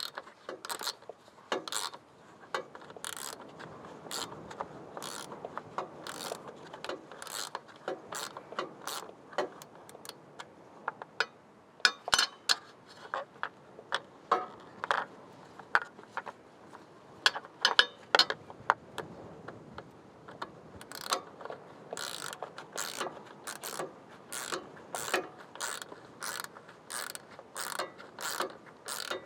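Hand tools working on a tractor battery: irregular sharp metallic clicks, some in quick runs, the loudest about halfway through.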